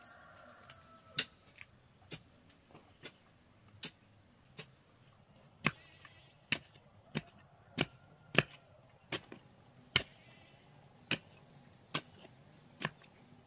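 A steady run of sharp chopping strikes of a hand tool on wood, about one to two a second, growing louder about halfway through.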